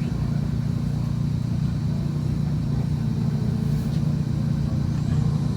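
Steady low rumble of a vehicle running, even throughout with no distinct events.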